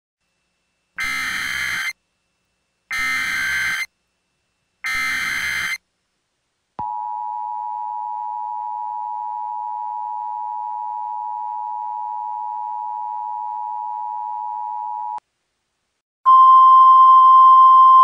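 Emergency Alert System alert tones: three short buzzy data bursts (the SAME header) about a second apart, then the steady two-tone EAS attention signal for about eight seconds. After a pause of about a second, a louder single steady tone starts near the end.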